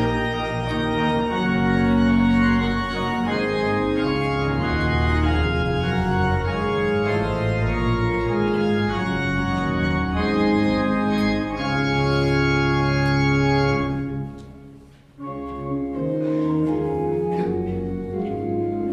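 Church organ playing a postlude in full chords over deep held bass notes. Near the end the sound dies away briefly, then the organ comes back in.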